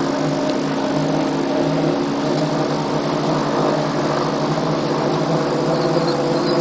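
RAF 2000 gyroplane's Subaru flat-four engine running steadily at low power on the ground before takeoff, heard from the open cockpit.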